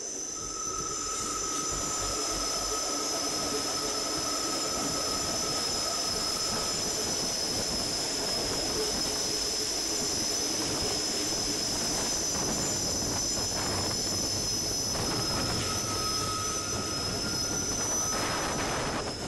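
Rhaetian Railway train on the Bernina line rolling round a tight curve, its wheels giving a steady high-pitched squeal of several held tones over the rumble of the running gear.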